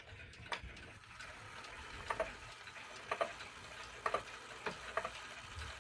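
Korean 31-day pendulum wall clock movement ticking, faint clicks about once a second. No gong strike sounds at the half hour because the silencer holds the hammer away from the gong.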